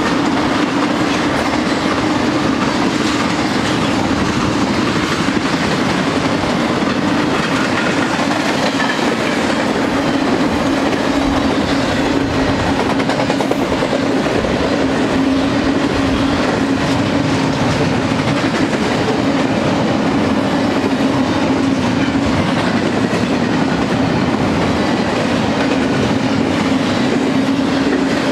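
Double-stack intermodal freight train's well cars rolling past close by: a steady rumble of steel wheels on the rails, with a steady low hum running under it.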